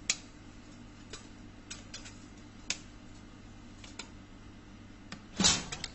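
Metal tape measure blade being worked inside a drinks vending machine: scattered light clicks and taps as it catches on the cans and racks, with a louder knock and rattle near the end, over a steady low hum.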